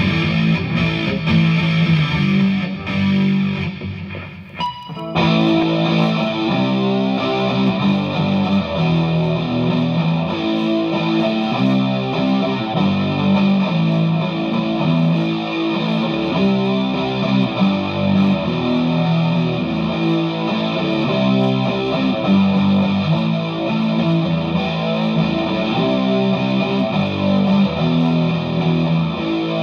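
Distorted electric guitar, a Vintage V100 Les Paul copy played through a DigiTech GNX3 multi-effects patch into an H&K Attax Metroverb amp, riffing over a GNX3 drum-machine pattern. About five seconds in the sound briefly drops, then comes back brighter and fuller.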